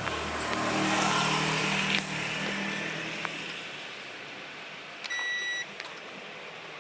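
Combination microwave-steam oven running with a low hum and a rushing noise, which dies away about halfway through with a couple of clicks. About five seconds in comes a single short electronic beep, about half a second long.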